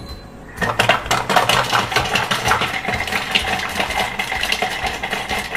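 Thermomix motor starting about half a second in and running at high speed, its blades chopping unpeeled garlic cloves, with a rapid rattle of pieces striking the bowl.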